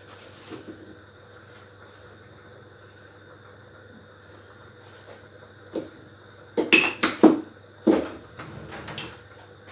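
Dishes and glassware clinking and knocking together as someone rummages through a kitchen drawer of cups and bowls, in a run of sharp clatters in the second half.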